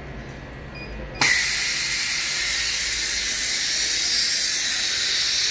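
Low hum of workshop machinery, then about a second in a loud, steady hiss of compressed air from an LCD panel repair machine starts abruptly.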